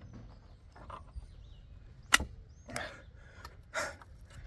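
A sharp plastic click a little over two seconds in, then two short scraping rustles: a car tail light's retaining clip popping free and the plastic light unit being worked out of the body.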